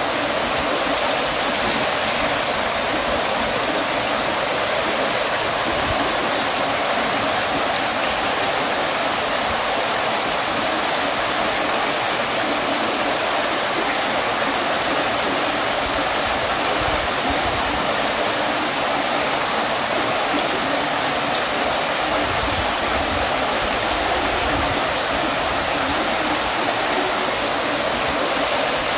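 Stone fountain's water falling and splashing in a steady, even rush, with a brief high blip about a second in and again near the end.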